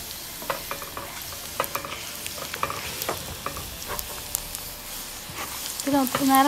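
Butter sizzling in a small pan with chopped garlic and dried red chilli flakes frying in it: a steady hiss with many scattered crackles and pops.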